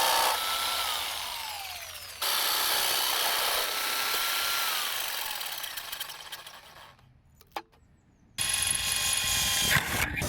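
Power saw cutting wood in several bursts, its motor whine falling away twice as the blade winds down, with a short pause before a last burst near the end.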